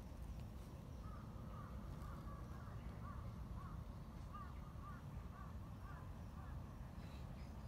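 Asian small-clawed otter giving a run of short, high chirps, two or three a second, starting about a second in and stopping near the end.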